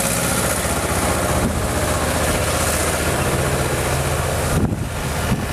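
Blizzard wind blowing across the microphone as a loud, steady rush, over a steady low hum.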